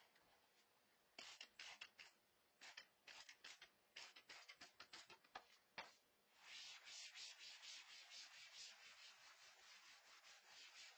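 A trigger spray bottle squirting cleaner in a string of short hissy sprays, then, about six seconds in, a cloth rubbing across a whiteboard in quick back-and-forth strokes to wipe it clean. Faint throughout.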